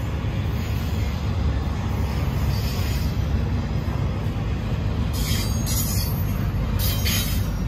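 CN intermodal freight train's double-stack well cars rolling past with a steady low rumble of wheels on rail. Short bursts of high-pitched wheel screech come in around five seconds in and again near the end.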